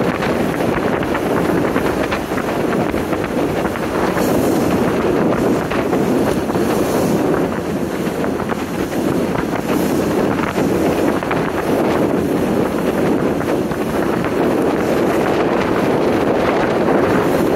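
Steady wind noise buffeting the microphone on a small motorboat under way, mixed with the rush of the boat running through choppy water.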